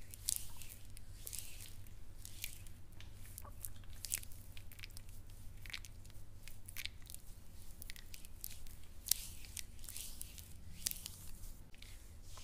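Hands rubbing a gritty brown body scrub over bare shoulders and an arm, close to a clip-on microphone: an irregular run of short, crisp scratching and rustling strokes over a faint low hum.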